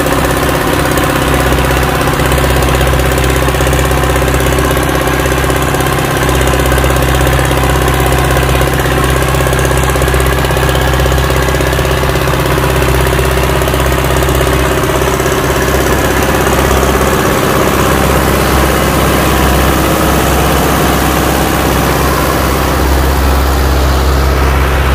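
Belarus 805 tractor's diesel engine running steadily under load as it pulls a loaded trailer through deep mud.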